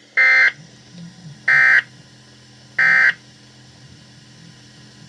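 Three short bursts of emergency-alert (SAME) digital data tones, a warbling screech of about a third of a second each, sent about once every 1.3 seconds. Bursts this short are the end-of-message code that closes an alert broadcast.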